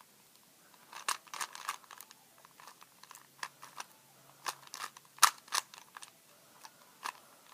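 Plastic Rubik's cube being turned by hand: a string of irregular sharp clicks and clacks as the layers are twisted, the loudest about five seconds in.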